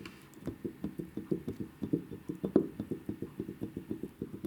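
A worn-out ball joint from a Haval F7's front suspension, rocked by hand so its loose stud knocks in its socket: a quick, even run of dull clacks, about six or seven a second. The knocking is the sign of a badly worn joint, its boot torn and the ball rusted.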